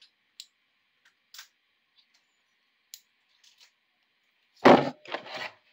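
Radio packaging being cut open and handled: a few faint clicks, then two loud rustling noises about half a second apart near the end.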